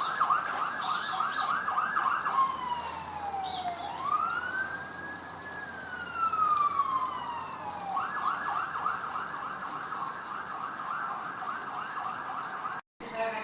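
Emergency vehicle siren: a rapid warble that changes about two seconds in to a slow wail, falling, rising and falling again, then goes back to the rapid warble about eight seconds in.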